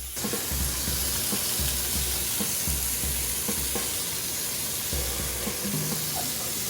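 Chicken sizzling as it fries in a hot pan, with dull low thumps every second or so as it is cut up in the pan.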